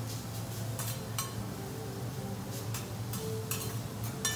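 Metal teppanyaki spatulas clinking and scraping against a steel griddle, with about six sharp clinks spread through and the loudest near the end, over a steady low hum.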